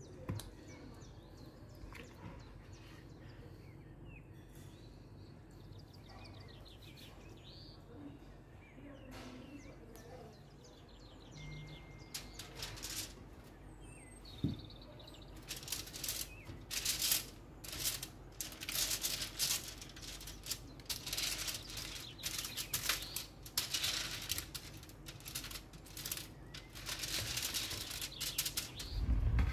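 Aluminium foil lining a baking tray crinkling as a hand presses and smooths it, a long run of crisp crackles starting about halfway in.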